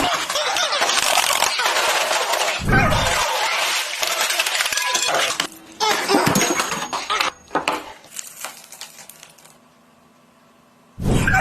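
Dense clattering and clinking of small hard objects. It thins to a few separate knocks after about five seconds, then dies away to near silence near the end.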